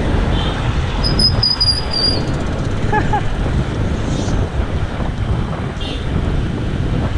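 Wind rushing over the camera microphone on a moving road bike, mixed with the steady noise of road traffic. About a second in, a brief thin high tone sounds for about a second.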